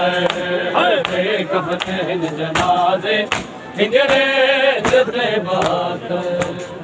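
A group of men chanting a Shia noha (mourning lament) in unison, with the sharp slaps of hands on bare chests (matam) beating along.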